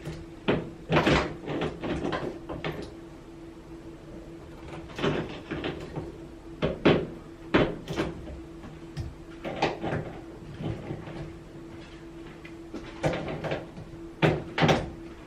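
Pliers clicking and knocking against the metal couplings of the washing machine's inlet hoses as they are tightened: scattered sharp clicks and clunks, with a steady hum underneath.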